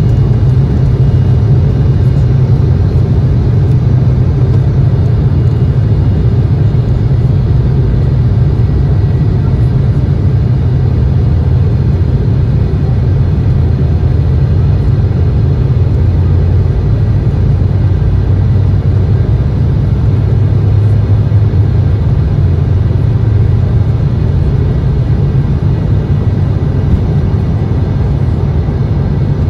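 Cabin noise of an Embraer 175 regional jet during takeoff: a loud, steady low rumble from its twin turbofan engines and the airflow and airframe around the cabin.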